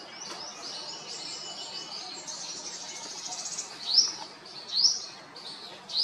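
Small birds chirping and calling, many short notes overlapping, with a quick trill about halfway through and two loud rising whistles near the end.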